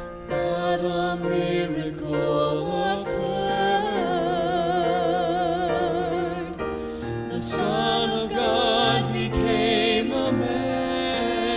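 Gospel song performed live: singing with a wavering vibrato over sustained instrumental accompaniment.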